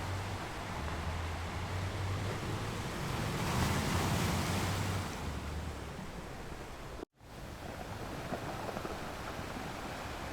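Ocean surf washing steadily, with a wave swelling and breaking a few seconds in. The sound cuts out completely for a split second about seven seconds in, then resumes.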